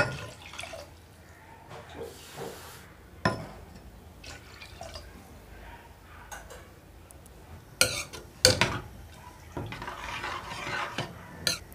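Water poured from a steel cup into a pressure cooker of chicken and spices, with several sharp metal clinks of the cup against the pot. The broth is stirred with some sloshing near the end.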